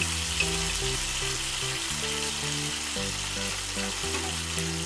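Spiced garlic-and-oil sauce sizzling in a frying pan, with a steady hiss, while background music with a simple melody plays.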